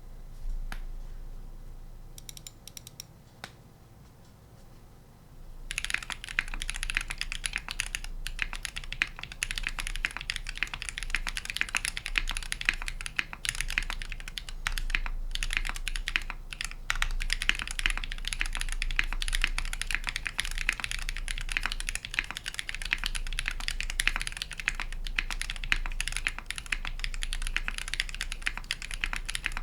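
Typing on a Taeha Fjell custom mechanical keyboard with Holy Panda tactile switches on a brass plate. A few single key clicks are followed, about six seconds in, by steady fast typing with a dense run of keystrokes.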